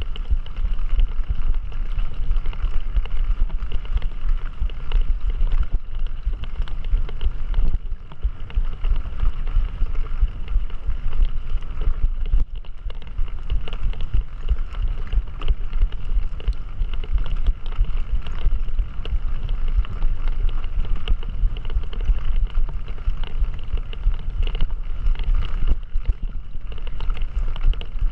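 Wind buffeting the microphone during a mountain-bike ride: a loud, constant low rumble with frequent small rattles and knocks from riding over rough ground.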